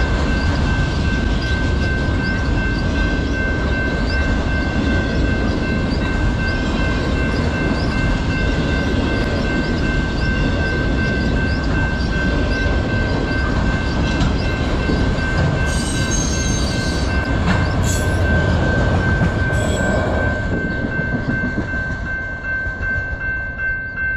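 Freight train of autorack cars rolling past with a steady rumble and wheel clatter, a few brief high wheel squeals about two-thirds of the way through. A railroad crossing bell rings steadily throughout, and the train noise fades over the last few seconds as it moves away.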